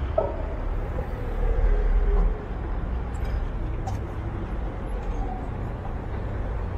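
City street ambience: a low rumble of road traffic, louder for the first two seconds or so and then steadier, with faint voices of passers-by.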